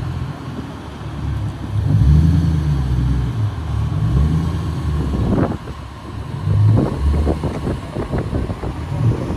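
Car engine and exhaust running with a deep, low note, swelling louder about two seconds in and again near seven seconds. A run of short crackles sits between the two swells.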